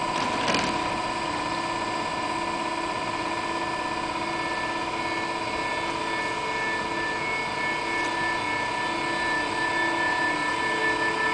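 SBB Re 460 electric locomotive pulling a passenger train away at low speed, its electric drive giving a steady whine of several held tones over a running rumble, growing a little louder toward the end as it draws closer. A brief clatter sounds about half a second in.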